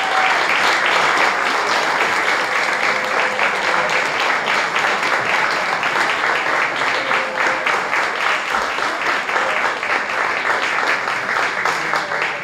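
Audience applauding: a dense, steady stretch of clapping that thins out to scattered single claps near the end.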